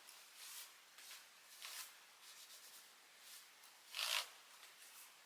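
Microfiber cloth wiping over a laptop's surface: faint, soft rubbing strokes, the loudest about four seconds in.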